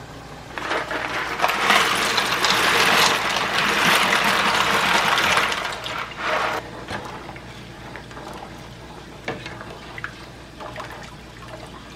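Dry penne poured from its box into a pot of boiling water, a loud rushing noise for about five seconds, then the water bubbling more quietly with a few light knocks as the pasta is stirred with a spoon.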